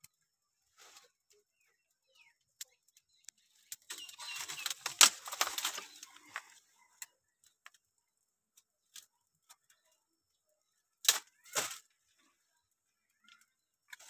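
Dry twigs and leaf litter rustling and crackling as branches are handled by hand, with a dense spell of crackling about four to six seconds in and two sharp snaps near the end.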